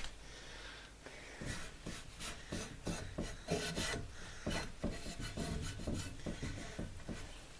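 Wax polish being rubbed by hand into an old fitting to brighten it: a run of short, irregular scrubbing strokes, starting about a second and a half in.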